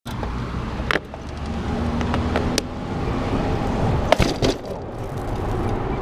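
Road ride heard from a bicycle-mounted camera: steady low rumble of wind and tyres with road traffic, broken by several sharp clicks and knocks from the bike, the loudest a sharp ringing click about four seconds in.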